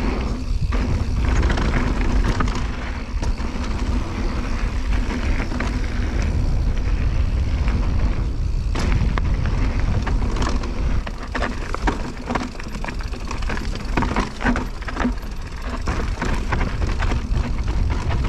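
Wind rushing over the microphone, with the rattle and knocks of a mountain e-bike descending a rough, broken trail at speed. The knocks come thick and fast through the second half.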